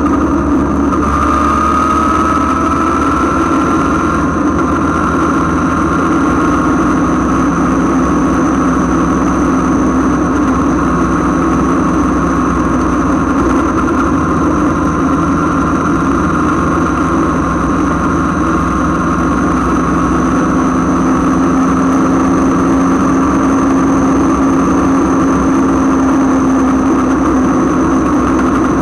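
Suzuki Katana motorcycle's inline-four engine running at a steady cruising speed, its note holding nearly constant with a slight rise in pitch a second or two in, over the rush of wind and road noise.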